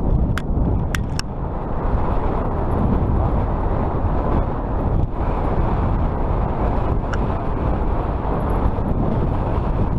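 Riding an electric fat-tire bike: steady wind rumble over the microphone and tyre noise, with a few sharp clicks in the first second and one more later on.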